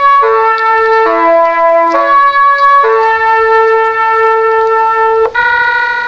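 Music horn of a Meitetsu 2000 series μSKY train playing its melody: a three-note phrase sounds twice, then a long note is held for about two and a half seconds. A new, higher note starts near the end.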